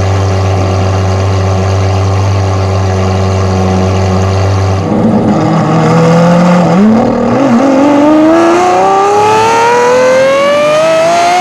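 Lamborghini Aventador SVJ's V12 engine through its Gintani exhaust, heard close at the tailpipe. It holds a steady low drone for about five seconds, then picks up and accelerates hard, the pitch climbing steadily to the end.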